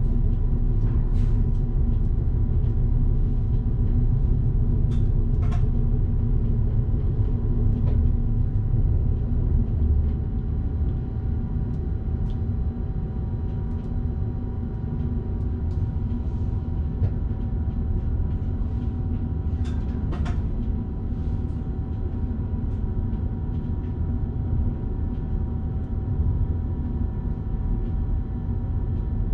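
Electric passenger train running, heard from the driver's cab: a steady low rumble of the wheels on the rails with a few faint steady tones over it. A handful of short sharp clicks come through, the strongest about twenty seconds in.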